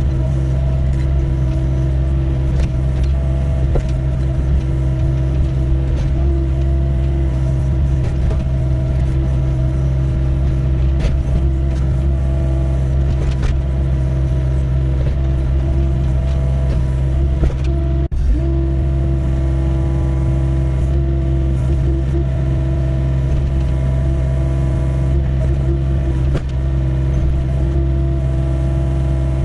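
Doosan 55W wheeled excavator's diesel engine running steadily at working speed, with light knocks scattered through it and a momentary break about two-thirds of the way in.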